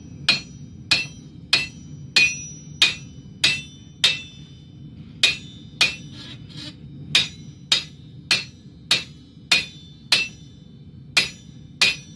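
Hand hammer striking a red-hot steel khukuri blade over the horn of an anvil, bending it into shape: about two blows a second, with two brief pauses. Each blow ends in a short metallic ring.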